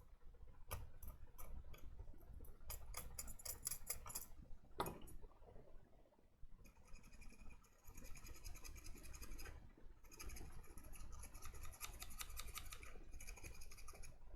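Multimeter probe tips clicking and scraping on the pins of a power-supply switching IC. Then the meter's continuity beeper buzzes in two long beeps, a sign that the pins are shorted together.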